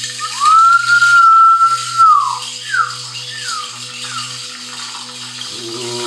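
A hand-held whistle sounding one long note that swoops up, holds for nearly two seconds and falls away, then three short falling chirps. Underneath are a steady low hum and a faint hiss. Near the end a steady, deeper droning tone begins.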